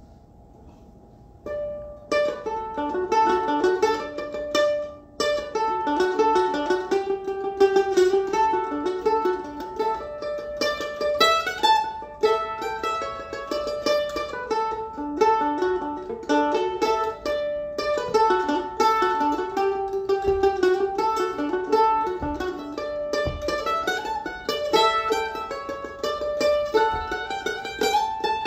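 Solo mandolin picking a fast old-time fiddle tune, note by note, coming in about a second and a half in, with a short break a few seconds later.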